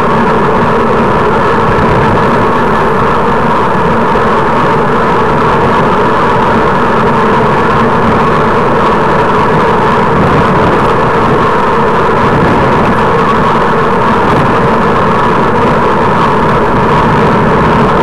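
Steady rushing wind and road noise on a bicycle-mounted camera while riding along at speed, loud and unbroken.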